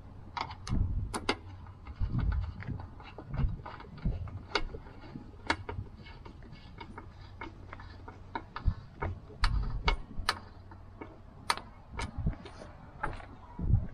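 A screwdriver tightening the screw that holds down a motorcycle seat: irregular sharp clicks and taps of the tool and screw, with low thumps of handling in between.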